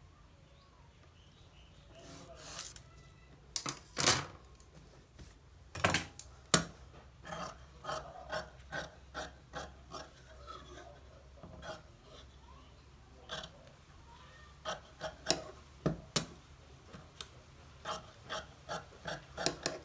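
Scissors cutting through stiff paper collar canvas: a run of short, sharp snips, a few a second, starting about two seconds in.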